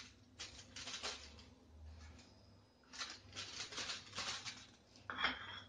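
Faint strokes of a silicone pastry brush dabbing a honey glaze onto crisp baked cookies on a foil-lined baking tray. The strokes come in short runs, with one sharper, louder stroke near the end.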